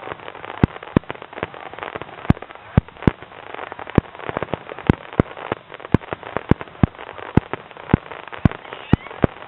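Aerial fireworks going off in quick, irregular succession: sharp bangs, often several a second, over a continuous hiss of noise.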